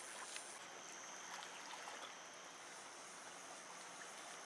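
Faint, steady rush of flowing river water, with a thin high whine setting in under a second in.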